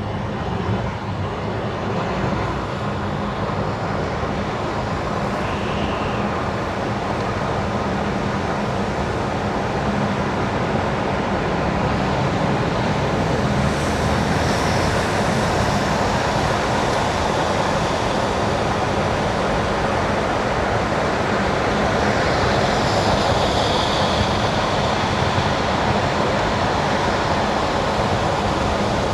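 Car tyres running on wet winter asphalt, a steady wash of road noise over a low rumble, building slightly as the drive goes on, with a brief higher swish about three quarters of the way in.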